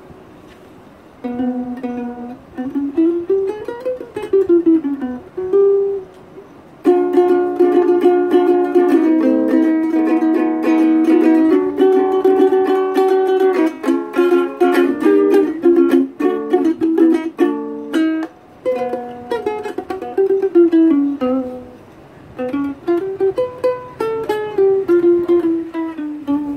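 Peavey ukulele played solo: picked single-note runs up and down the scale, then strummed chords from about seven seconds in for roughly ten seconds, then more single-note runs.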